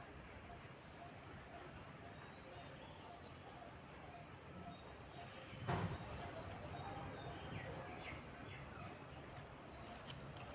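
Faint outdoor ambience dominated by a steady, high-pitched insect drone, with a few faint short chirps near the end. A brief low thump about six seconds in.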